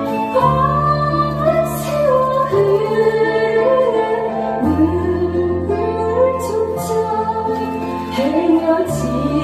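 A woman singing a Korean trot ballad into a microphone with instrumental accompaniment, her melody gliding and wavering over long held bass notes.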